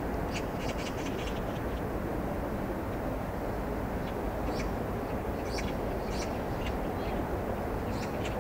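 Steady outdoor background noise with short high chirps of birds scattered through it: a quick run of chirps in the first second, then single chirps now and then.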